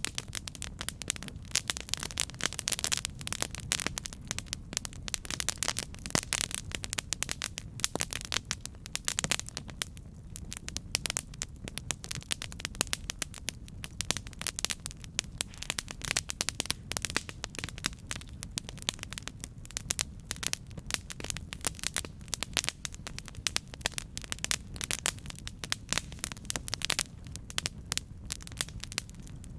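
Campfire burning, with dense, irregular crackling and popping over a steady low rumble of the flames.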